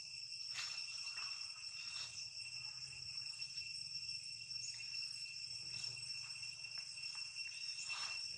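Steady, high-pitched insect chorus shrilling without a break, with a few faint short sounds over it, the clearest near the end.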